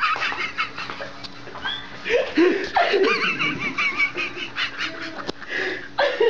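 People laughing and giggling, in bursts of short rising and falling high-pitched laughs.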